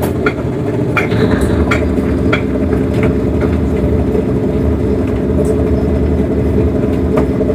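Tugboat's diesel engine running steadily under tow load, heard close to its exhaust stack, with a few faint clicks over it.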